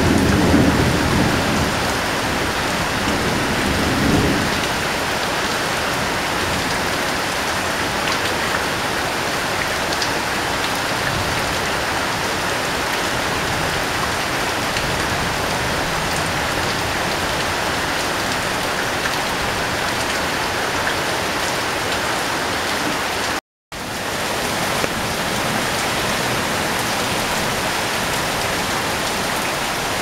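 Heavy rain pelting a corrugated sheet roof, a dense steady hiss of drops. A low rumble of thunder dies away in the first four seconds, and the sound cuts out for a split second about two-thirds of the way through.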